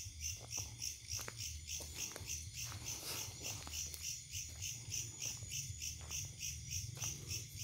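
Crickets chirping in a steady, evenly pulsing night-insect chorus.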